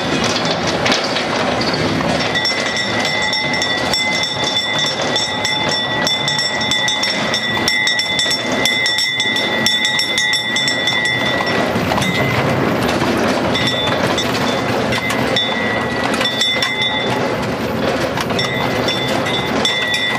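Horse-drawn fire wagon rolling along a road, its wheels and body giving a steady rattle and clatter. A steady high whine joins about two seconds in, breaks off about halfway through, and comes back in short stretches near the end.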